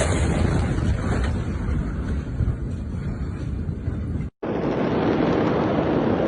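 Steady rumbling noise like wind buffeting a microphone, broken by a sudden brief dropout a little past four seconds, after which a different rumbling noise carries on.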